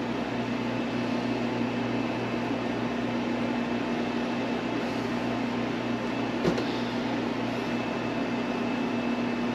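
Steady mechanical room hum with a low, even drone and a faint high whine running under it, with one faint click about six and a half seconds in.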